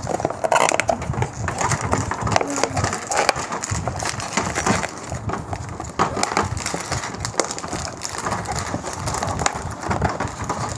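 Crinkling of a plastic bag of Lego pieces being handled and opened, with irregular clicks of plastic bricks being handled and pressed onto a baseplate.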